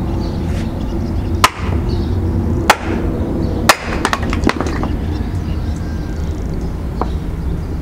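Three loud, sharp knocks about a second apart, followed by a quick run of lighter knocks and one faint knock near the end, over a steady low rumble.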